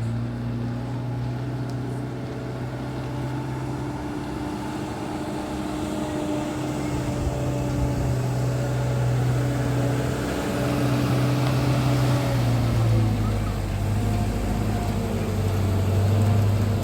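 Steady engine hum of a running vehicle, its pitch drifting slowly up and down, over a haze of road or running noise.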